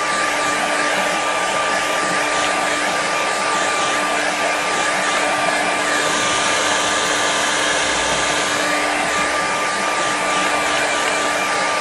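Handheld hair dryer running steadily: a constant motor whine over the rush of blown air.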